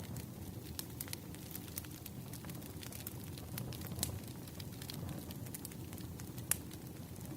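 Firewood crackling as it burns: a steady low hiss of the fire with many sharp pops and snaps at irregular moments, the loudest snap about six and a half seconds in.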